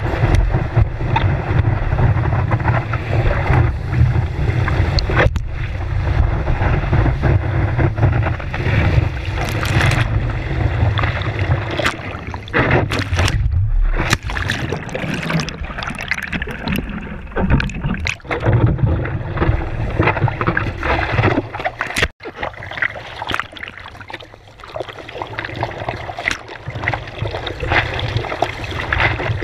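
Seawater rushing and splashing against a surfboard-mounted action camera while a surfer paddles, with wind buffeting the microphone. About halfway through the sound turns muffled for a few seconds as the camera goes underwater, then the splashing returns.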